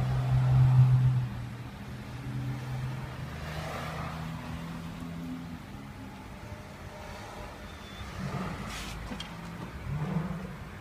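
Street traffic: car engines running as vehicles pass along the road, loudest in the first second or so, with a brief sharper noise near the end.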